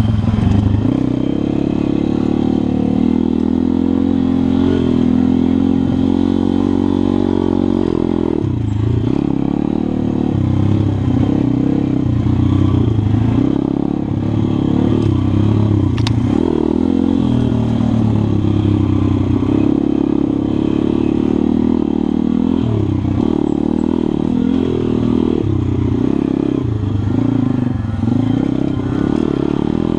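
A pit bike's small single-cylinder engine is heard from the rider's seat as it is ridden on a dirt track. The engine note rises and falls with the throttle and drops away briefly several times as the throttle closes. There is one sharp click about halfway through.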